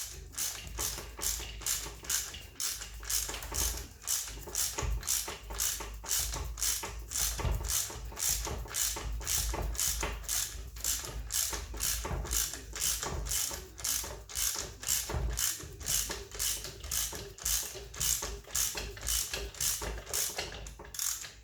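Hand ratchet wrench clicking steadily, about two to three clicks a second, as a nut or bolt on a MacPherson strut and spring compressor assembly is worked to tighten it.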